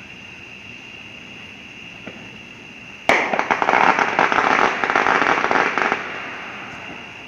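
Fireworks crackling: a sudden, loud burst of rapid pops about three seconds in, running for about three seconds before dying away.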